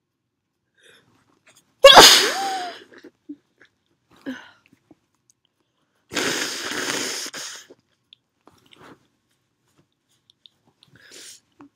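A person sneezing: a sudden, loud sneeze about two seconds in with a voiced cry through it, then a longer, breathy blast of air about six seconds in, with faint breaths between. The sneezes are set off by a cologne that is irritating the nose.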